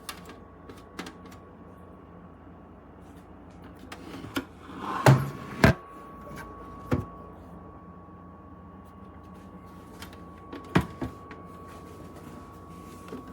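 Scattered knocks and clicks of hard objects being handled, loudest in a cluster about five seconds in and again near the end, over a faint steady hum.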